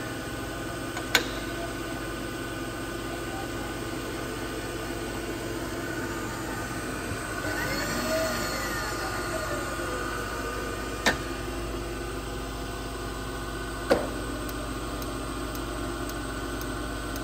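Phoebus PGM-GVS300A universal milling machine running with a steady hum of several steady tones. Sharp clicks come about a second in and twice more near the end, and about halfway a brief swell carries a pitch that rises and then falls.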